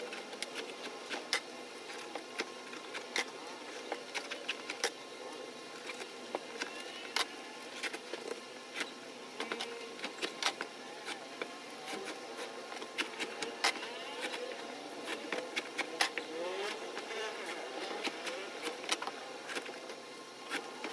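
Scattered sharp clicks and taps as dividers are handled and fitted into a plastic hard case, over a faint steady background hum.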